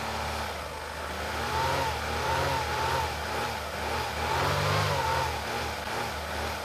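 Car engine running at a fast idle of about 2000 rpm while carb cleaner is sprayed into the intake through the PCV hose; the engine speed wavers up and down and the sound swells and fades with it.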